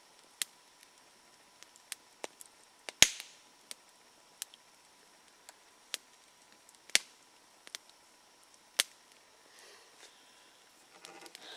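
Small campfire of a couple of logs and sticks crackling: sharp pops at irregular intervals, the loudest about three seconds in, with little else heard between them.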